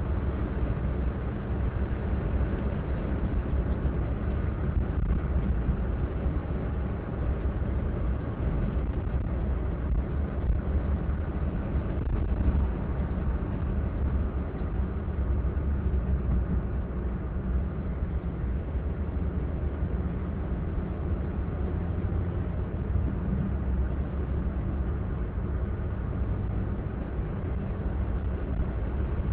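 A car driving along a road, heard from inside the cabin: a steady low rumble of engine and road noise.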